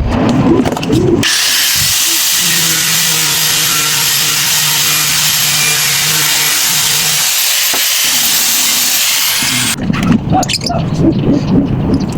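A handheld power tool running steadily with a high whine. It starts about a second in and stops near the end.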